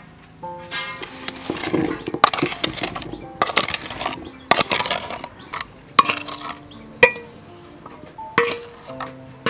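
Wet black jamun fruit tumbling out of a metal pan into a ceramic bowl, with the pan's rim clinking and scraping against the bowl and a wooden spoon pushing the last fruit out. A dense run of clatters comes first, then a few separate knocks.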